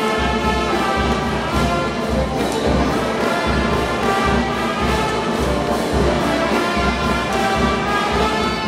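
Tondero music played by a brass band, with held horn notes over a steady bass beat, accompanying the dancers.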